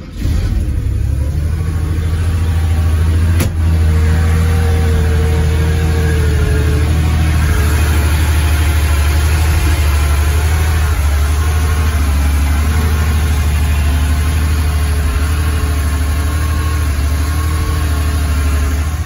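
1981 Porsche 911 SC's air-cooled 3.0-litre flat-six idling steadily just after a cold start, with a brief click about three and a half seconds in.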